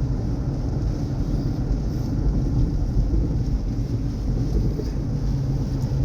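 Steady low rumble of a vehicle under way, with wind buffeting the microphone; a low steady hum rises out of it about five seconds in.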